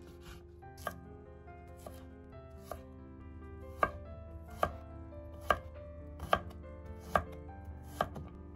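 Chef's knife chopping on a wooden cutting board, one even chop a little under every second. The chops are soft at first and become sharp and loud from about four seconds in, as it dices a cucumber.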